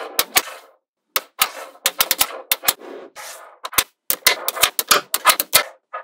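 Small magnetic balls snapping and clicking together as blocks of them are pressed into a slab: quick, irregular runs of sharp clicks with short rattling in between, and a brief pause about a second in.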